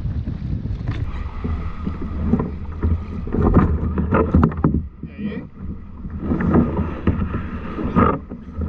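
Kayak paddle blades dipping and splashing in the water with uneven strokes about a second apart, over low wind rumble on the microphone.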